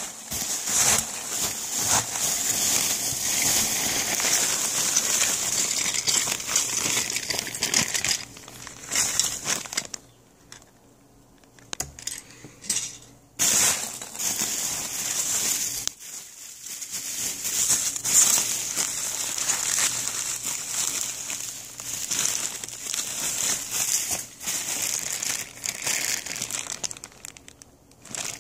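Foam packing peanuts rustling and crunching as a hand digs through a box full of them, with a couple of short pauses.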